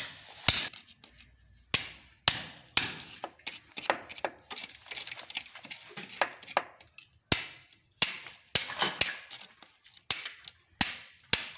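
Hammer driving a steel chisel into a very hard concrete wall: a string of sharp, ringing blows, irregularly spaced about one or two a second.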